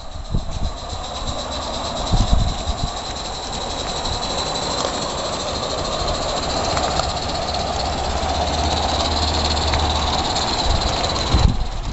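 Live-steam model of the Beyer Peacock locomotive Mannin running with its coaches: a steady steam hiss with rapid, fine exhaust and wheel beats, growing slowly louder as it comes nearer.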